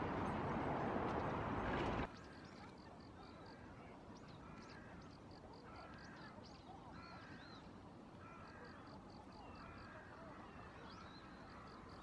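A steady rushing noise that cuts off abruptly about two seconds in. After it comes a quieter outdoor background with several birds calling: repeated short arched calls and quick runs of high ticking notes.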